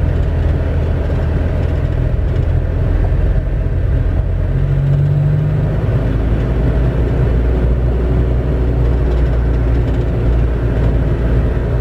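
Isuzu Panther running steadily down a steep descent, heard from inside the vehicle: a low engine drone mixed with road noise, with a brief stronger hum about five seconds in.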